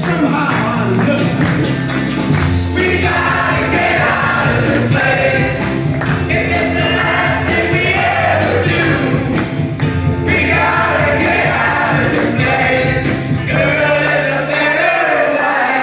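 Dance music with singing and a steady beat, played loud over a PA system.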